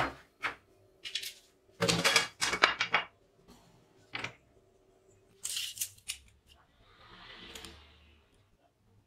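Tools and aluminium angle pieces being handled and set down on a wooden workbench: a series of short knocks and clatters, loudest a couple of seconds in. Near the end a softer sliding rasp, like a steel tape measure being pulled out along the board.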